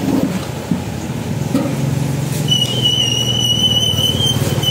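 Low engine rumble of vehicle traffic. About halfway through, a steady high-pitched squeal sets in and holds for a few seconds.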